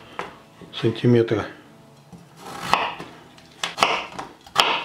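Kitchen knife slicing a raw potato into fry sticks, the blade knocking against a wooden cutting board several times in the second half.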